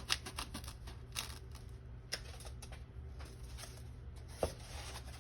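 Scattered light clicks and taps of handling work on a bench, the sharpest about four and a half seconds in, over a low steady hum.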